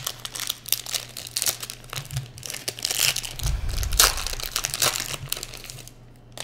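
Shiny foil wrapper of a Panini Prizm basketball trading-card pack crinkling as it is torn open by hand, in a run of crackles that is loudest about four seconds in and stops near the end.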